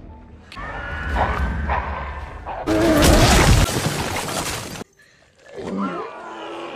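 Film sound effects: a loud crashing, shattering burst lasting about two seconds, cutting off abruptly, followed by a brief cry.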